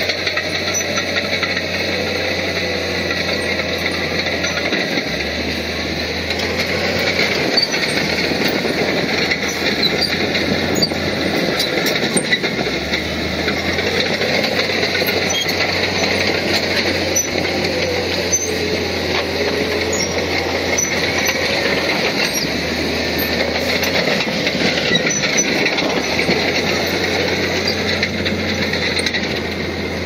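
Crawler bulldozer at work: its diesel engine running steadily under load, with the steel tracks clanking and a wavering squeal now and then.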